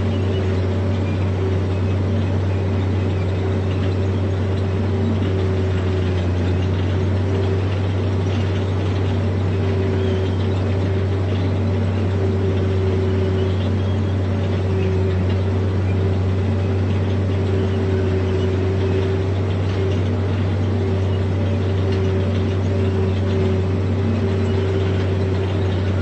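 Heavy diesel engine of earthmoving machinery running steadily: a constant low drone with an even hum above it, with no revving or change in pitch.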